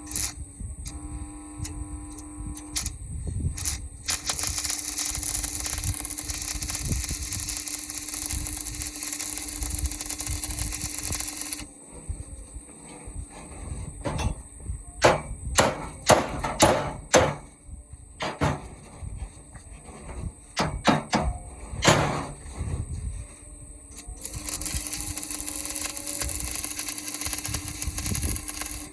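Electric arc welding on a steel plough: a steady crackling hiss with a faint hum, in two long runs. Between the runs come a series of sharp metal knocks and taps.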